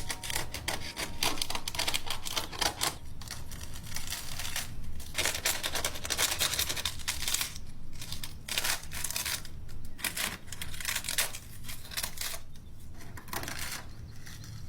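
The dry, papery envelope of an abandoned wasp nest being torn and broken apart by hand. It gives off a dense run of irregular crackles and rips.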